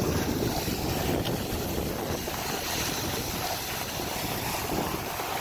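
Steady wind noise on the microphone from moving downhill on skis, mixed with the hiss of skis sliding over packed snow.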